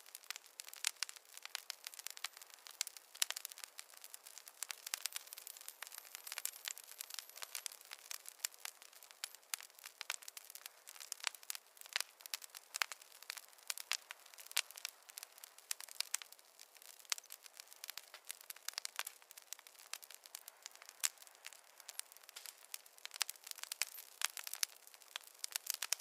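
Wood campfire crackling: a steady, irregular run of sharp snaps and pops over a faint hiss.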